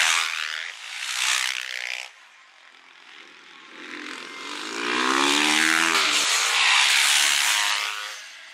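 Supermotard motorcycle engines revving hard as bikes race past. The sound drops away suddenly about two seconds in, then another bike's engine rises, runs loud for a few seconds with its pitch dropping as it slows, and fades near the end.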